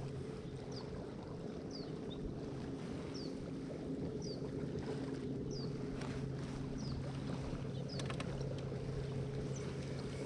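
A steady low hum with wind on the water. Over it, a bird gives a short, high, falling chirp about once a second, and there are a couple of sharp clicks about eight seconds in.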